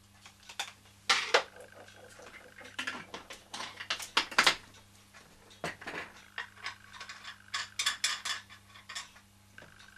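Scattered clinks, taps and knocks of small metal parts and tools being handled on a toy steam engine, loudest about a second in and again around the middle, over a steady low hum.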